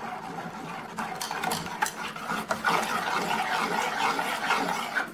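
Long steel spoon stirring thin urad dal porridge in a stainless steel pot, a continuous swishing broken by a few light metal-on-metal clinks against the pot.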